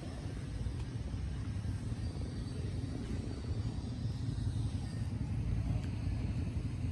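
Low, steady outdoor rumble with no distinct events.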